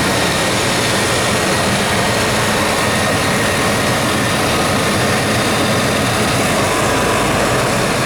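Chevy 350 TBI V8 (5.7 L throttle-body-injected) running steadily and loudly, heard close to the engine, with no distinct knock standing out. The owner says the engine is running rich.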